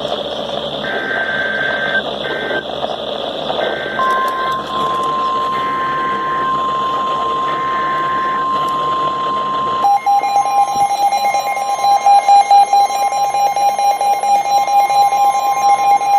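Emergency alert signalling over weather radio: a series of roughly one-second bursts of warbling data tones (SAME header) over radio hiss, then a steady alert tone just above 1 kHz, the NOAA Weather Radio warning alarm, starts about four seconds in. About ten seconds in a second, lower alarm tone joins and pulses in loudness while the first tone keeps sounding.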